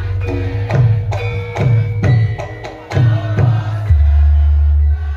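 Live gamelan music: hand-drum strokes about twice a second over ringing metallophone notes. From about four seconds in a loud, deep low tone takes over for about a second.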